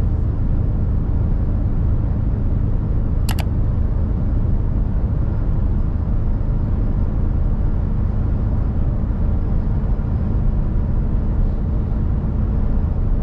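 Mercedes Actros truck cruising at motorway speed, heard from inside the cab: a steady low rumble of engine and road noise. A single short click comes about three seconds in.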